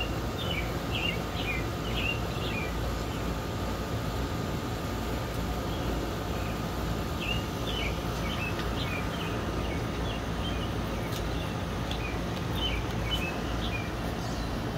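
Small birds chirping in several short runs of quick, pitch-bending calls, over a steady low outdoor rumble.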